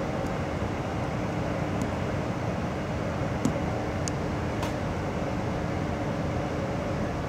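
Steady running noise of a passenger train heard from inside the carriage, with a constant low hum under it. A few faint clicks come through, and one sharper knock about three and a half seconds in.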